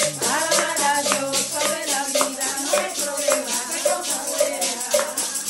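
Group singing a Spanish praise song, accompanied by hand clapping and a shaken maraca keeping a steady, quick beat.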